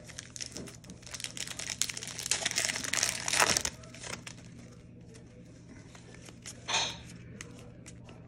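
Wrapper of a Panini Contenders football card pack crinkling and tearing as it is ripped open, loudest a little past the middle. After that come lighter clicks of the cards being handled and a brief rustle near the end.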